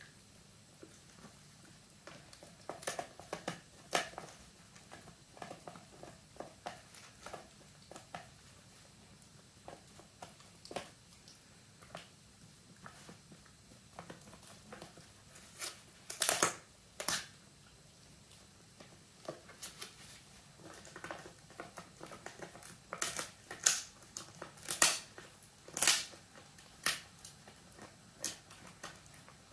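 Italian greyhound gnawing on a dried pig ear: irregular crunches and cracks of tough chew being bitten, the loudest about halfway through and in a run a few seconds before the end.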